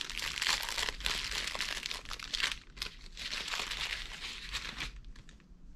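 Clear plastic packaging bag crinkling as it is handled and pulled open, in several surges that die down near the end.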